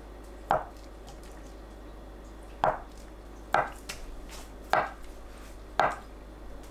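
Chef's knife slicing down through a block of tofu and knocking on a wooden cutting board: five sharp taps, unevenly spaced about a second apart.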